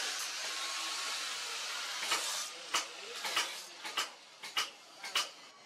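Angle grinder with an abrasive disc grinding the steel edge of a sword blade made from a motorcycle brake disc: a steady hiss for about two seconds. The grinding then stops and a run of sharp taps follows, roughly one every half second.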